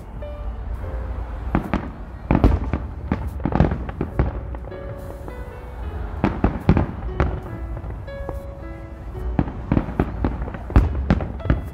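Aerial fireworks shells bursting in an irregular series of sharp bangs and crackles, some in quick clusters, with music playing behind them.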